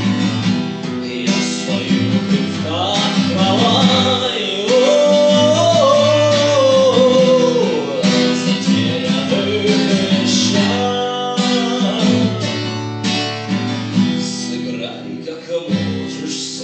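Instrumental break in a song: acoustic guitar strumming chords, with a gliding melody line over it for a few seconds in the middle.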